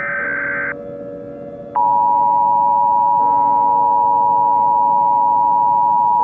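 Emergency Alert System alert: the last burst of buzzy SAME header data ends, then about two seconds in the two-tone EAS attention signal (853 and 960 Hz together) starts and holds steady and loud, over quiet background music.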